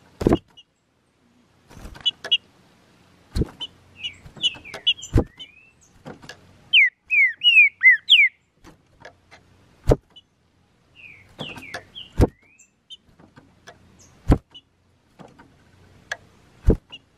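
Green-winged saltator (trinca-ferro) giving short high calls, then singing one loud whistled phrase of quick rising and falling notes midway, with more calls after. Sharp clicks or knocks come every two seconds or so and are the loudest sounds.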